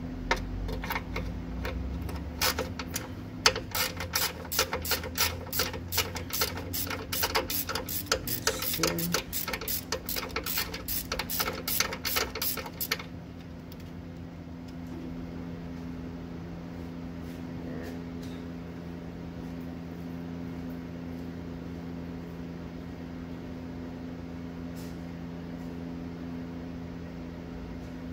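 Ratchet wrench on a socket extension clicking rapidly as a bolt is worked loose, stopping about thirteen seconds in; after that only a steady low hum.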